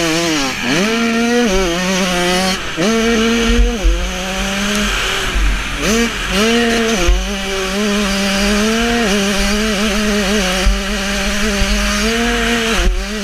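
Yamaha motocross bike's engine run hard at racing pace, its revs climbing and then dropping sharply again and again through gear changes and throttle roll-offs, over a steady rush of wind noise.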